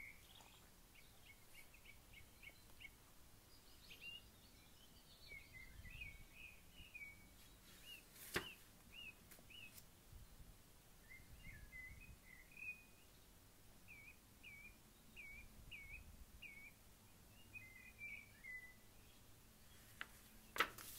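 Faint background birdsong: series of short, high chirping notes from small birds, repeated throughout. Two sharp clicks break in, one about eight seconds in and one near the end.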